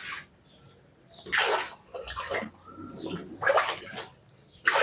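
Home-made spiral (Wirtz) water pump working: water splashing and gurgling in four or so separate gushes as the hose coils on the bicycle wheel lift water up to the outlet.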